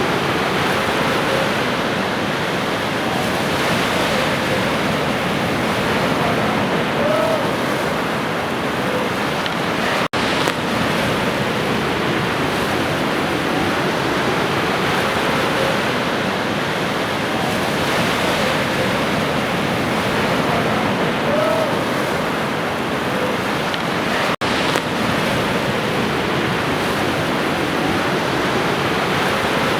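Ocean surf: waves washing steadily on a shore, a continuous rushing hiss. The sound drops out for an instant twice, about ten seconds in and again near the end.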